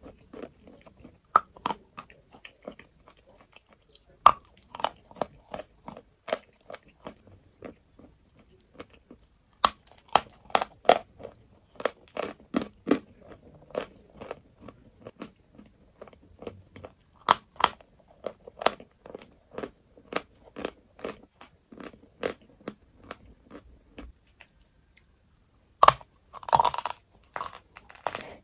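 Chalk being bitten and chewed close to a clip-on microphone: sharp, irregular crunching and crackling as the pieces are ground between the teeth, with short pauses. After a brief quiet spell, a fresh bite near the end brings a dense burst of crunches.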